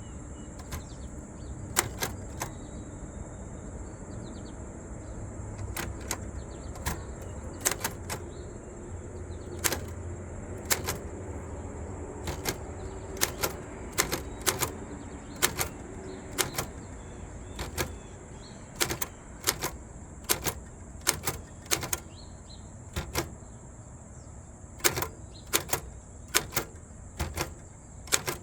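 1947 Royal KMM manual typewriter being typed on: separate sharp key strikes, spaced out at first and coming more quickly, about two a second, from about two-thirds of the way in.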